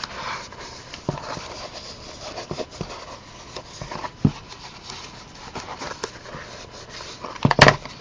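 Hands rubbing and handling stiff paper: a scalloped paper trim strip pressed down along the fold of a chipboard roof piece, with scattered light clicks and a short burst of sharp taps near the end.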